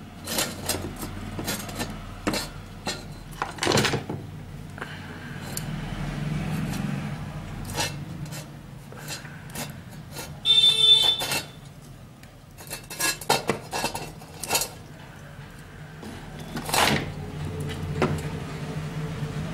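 Scattered metallic clicks and clinks of pliers and small parts as wires are fitted into a ceramic terminal socket on an electric iron's heating element, with a short high-pitched squeak about halfway through.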